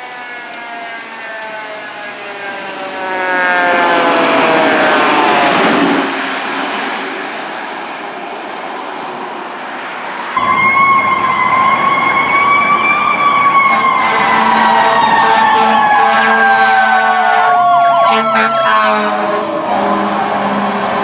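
Fire apparatus sirens responding. Over the first few seconds a siren falls steadily in pitch. After a cut about ten seconds in, a second siren wails, rising and then slowly falling, over the truck's engine and road traffic.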